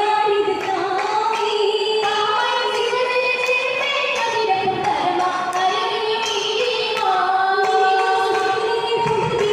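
A group of female singers singing an Oppana song, a Mappila folk song, together in one melody line, with long held, wavering notes, sung into stage microphones.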